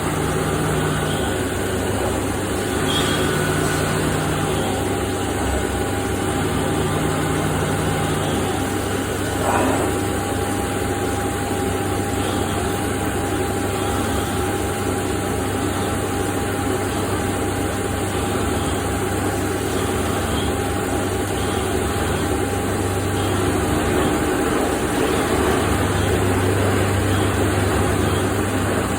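CNC machining center milling SS400 steel: steady machine and spindle noise with a held tone, the low hum of the cutter in the cut coming and going in short passes, three in the first eight seconds and a longer one near the end.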